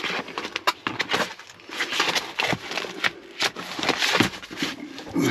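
Papers and booklets being handled and leafed through: rustling paper with many small sharp clicks and crackles.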